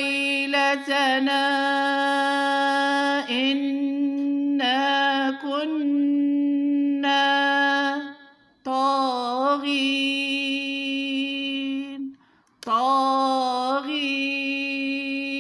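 A woman reciting the Quran in slow, chanted tajweed, holding long, steady notes on drawn-out vowels, with gliding turns between them. There are two short pauses, about eight and twelve seconds in.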